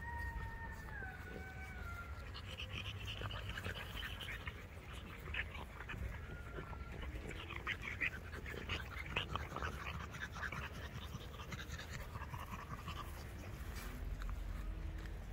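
Shar-Pei puppies playing: a short, falling whine about a second long at the start, then scattered panting and snuffling, busiest in the middle.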